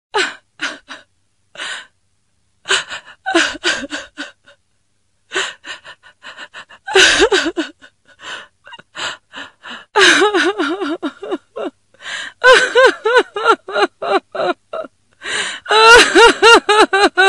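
A young female voice sobbing and crying: short gasping sobs at first, then louder wailing sobs with a wavering pitch from about ten seconds in.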